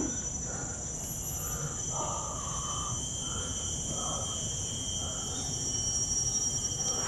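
Steady, high-pitched drone of tropical forest insects, several shrill tones held together without a break.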